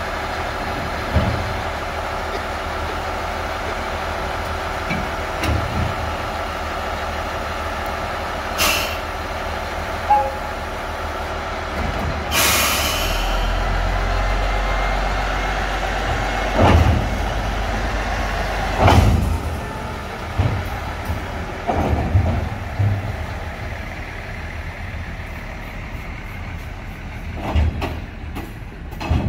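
A diesel railcar's engine idling steadily on a railway turntable, with scattered metallic clunks. About twelve seconds in a short burst of air hiss, then a deeper engine rumble runs for several seconds before it settles.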